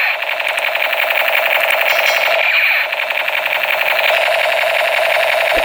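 A loud, steady electronic buzzing rattle made of very rapid, even pulses, unchanging throughout.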